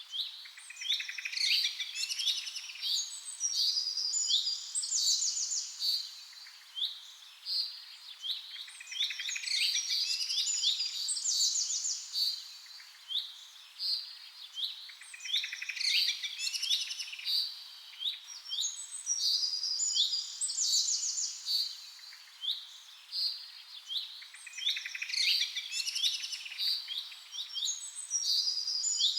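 Songbirds chirping and trilling, a busy mix of quick whistled notes and rapid trills, with the same passage repeating about every eight seconds as a looped recording.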